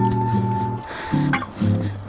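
Background music led by plucked guitar, with one higher note held through the first second and lower notes changing underneath.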